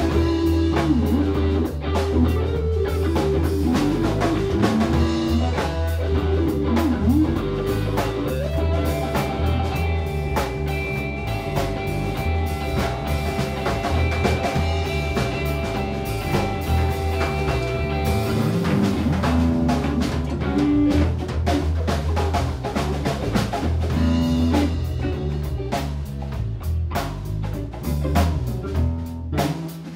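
Live rock band playing: two electric guitars, electric bass and drum kit, with long held guitar notes in the middle stretch. The playing drops in loudness right at the end.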